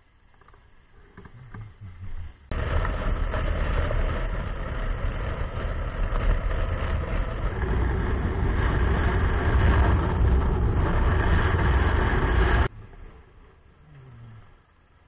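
Yamaha TDM 900 motorcycle with its parallel-twin engine being ridden at speed, heard as a loud, even rush of wind and engine noise on a bike-mounted camera. The noise starts suddenly about two and a half seconds in and cuts off about ten seconds later to a much quieter background.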